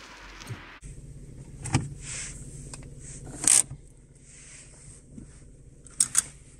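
In the cabin of an Opel Astra J: the handbrake lever is pulled up with a short loud rasp, then the seat-belt buckle releases with two sharp clicks near the end. A steady low hum runs underneath.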